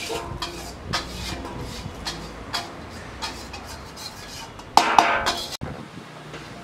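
A metal spoon scraping and knocking against a stainless-steel basin as the last of a rice-flour-coated pork mixture is scraped out into a glass jar. It makes several sharp clinks with a short ring, the loudest cluster about five seconds in.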